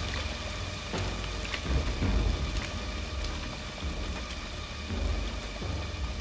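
Steady rain falling on wet ground, with a low rumble of thunder swelling and fading underneath.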